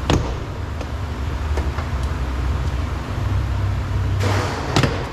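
Door trim panel being pried off with a flathead screwdriver: a sharp plastic click just after the start and another near the end as the retaining clips let go, with a few faint ticks and a brief scraping rush between. A steady low hum runs underneath.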